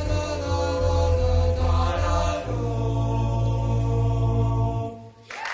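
All-male a cappella group singing a final sustained chord, with a strong low bass note held under the upper voices; the chord shifts about halfway and is cut off about five seconds in. Applause starts at the very end.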